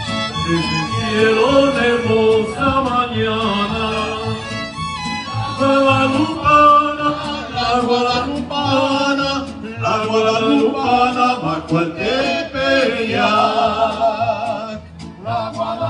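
Mariachi band playing live, violins and guitars together with men's voices singing.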